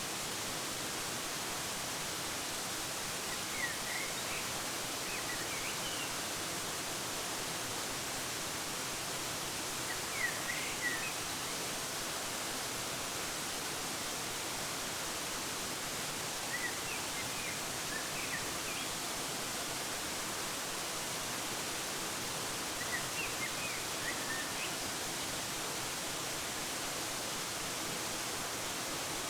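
Steady rush of a waterfall, with short runs of high bird chirps breaking in about every six seconds.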